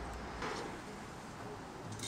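A single short tap on the walnut table frame about half a second in, over faint workshop hum, with a louder clatter starting right at the end.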